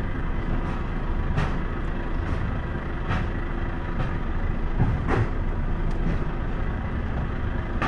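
Semi-truck running at a slow roll, heard from inside the cab as a steady low rumble, with a few short knocks every couple of seconds.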